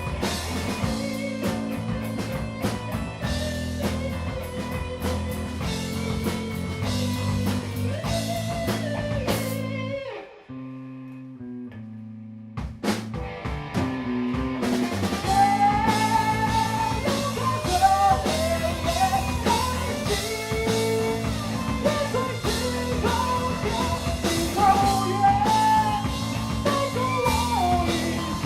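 Live rock band playing: electric guitar, bass and drum kit. About ten seconds in the band drops away to a held low note, then crashes back in a couple of seconds later, with a bending melody line over it.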